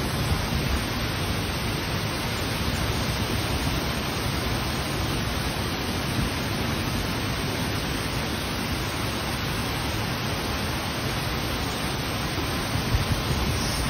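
Hurricane wind and heavy rain making a steady, loud rushing noise, with a strong low rumble underneath and stronger gusts near the end.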